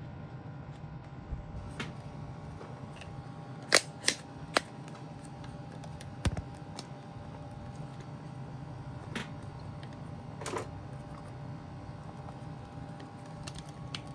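A few sharp clicks and taps over a steady electrical hum: three close together about four seconds in, then single ones spread out later.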